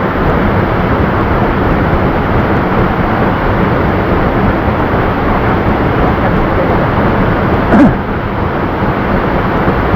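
Steady rush of a mountain waterfall and stream, a loud even roar of falling water. About eight seconds in there is a short louder bump.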